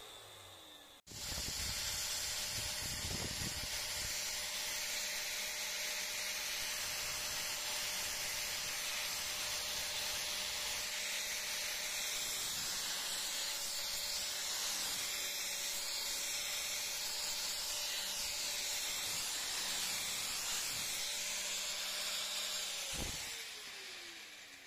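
Angle grinder fitted with a finishing disc running against carved wood: a steady hissing rush over a steady motor whine, starting about a second in. Near the end it is switched off and the whine falls away as it spins down.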